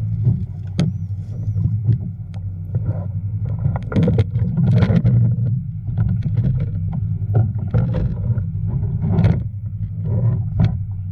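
A boat engine running steadily, with water splashing and sharp knocks throughout.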